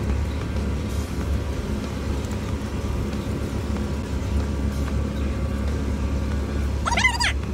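Mercedes-Benz Actros truck's diesel engine running steadily at low revs, heard from inside the cab as the truck creeps slowly forward. About seven seconds in, a short warbling high-pitched sound cuts in briefly.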